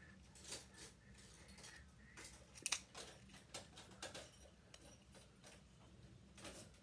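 Faint, scattered clicks and taps of small plastic model-kit parts being handled and fitted together, with one sharper click a little under three seconds in.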